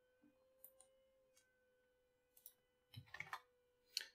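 Near silence broken by a few faint computer-mouse clicks, with a small cluster of them about three seconds in, over a faint steady hum.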